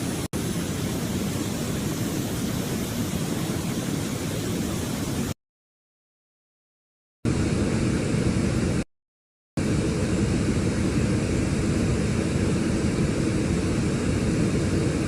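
Steady rushing, static-like noise with most of its weight in a low rumble, from a recording presented as a sound of space. It breaks off abruptly into dead silence about five seconds in and resumes two seconds later, then drops out again briefly around nine seconds.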